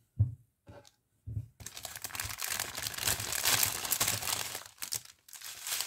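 Small plastic bags of diamond painting rhinestones crinkling as they are handled, after a few light knocks. The crinkling runs for about three and a half seconds and stops shortly before the end.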